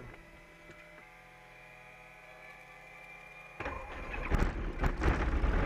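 A light aircraft's piston engine being cranked by its starter on a nearly flat battery, starting suddenly about three and a half seconds in after a faint steady whine. Several sharp pops come as the engine tries to catch.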